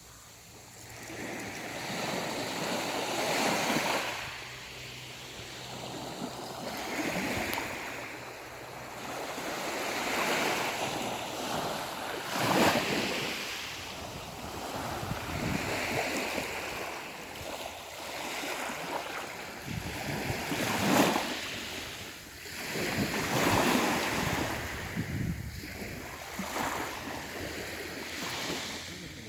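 Sea waves breaking and washing in and out, rising and falling in swells every few seconds. Sharper crashes come about twelve and twenty-one seconds in.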